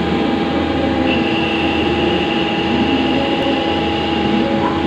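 CNC lathe running, its spindle turning a metal bar while a turret tool cuts it: a steady machine hum, with a thin high whine that comes in about a second in and stops near the end.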